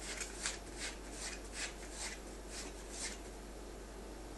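A cat treading its paws on hanging file folders, each step making a short scratchy rustle of the folder card, about two or three a second, stopping about three seconds in.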